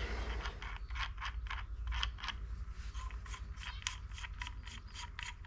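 Steel flywheel puller being twisted out of the threads of a just-removed magneto flywheel (rotor), with small metallic clicks about four times a second.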